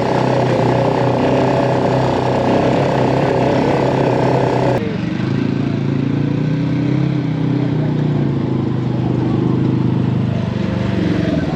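Quad (ATV) engine running under way on a rough trail, its pitch rising and falling with the throttle. About five seconds in the sound changes abruptly, becoming lower and duller.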